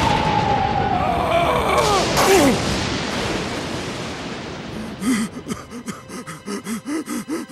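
Cartoon sound effect: a long falling whistle over a rushing noise, dropping in pitch for about two and a half seconds. About five seconds in, a rapid run of short, bouncing tones follows, about three or four a second.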